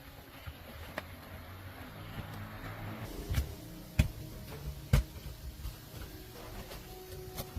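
A handful of sharp knocks, about five, the loudest two close together near the middle, over a low steady hum.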